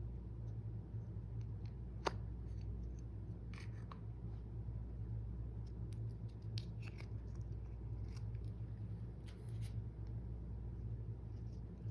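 Slime being handled, giving scattered small clicks and crackles with one sharper click about two seconds in, over a steady low hum.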